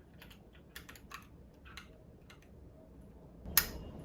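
Light plastic clicks and taps from handling the keycaps of a Keychron Q1 mechanical keyboard, then one louder sharp click about three and a half seconds in.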